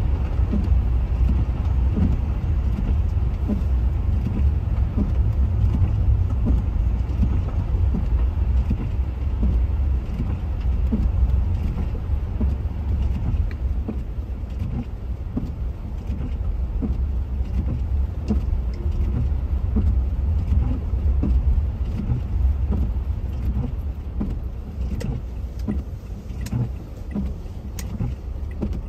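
A car driving on snowy streets: a steady low road rumble and tyre noise, with frequent small knocks and thumps throughout.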